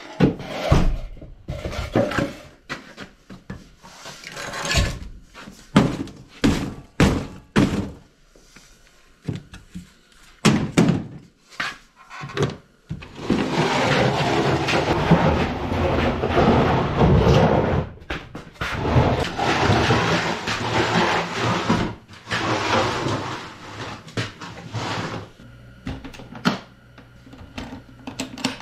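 A metal-edged wooden crate knocking and thumping against clutter as it is worked loose, then a long scraping as it is dragged across a concrete floor, and a few more bumps as it is set down.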